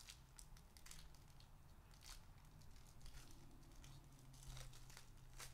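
Foil trading-card pack (Upper Deck SPX hockey) being pulled apart by hand, the foil wrapper tearing and crinkling in faint, scattered crackles.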